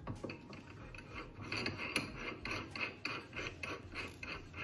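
Keyed drill chuck on a pillar drill being turned by hand to open its jaws: a dry, rasping scrape that repeats about three times a second.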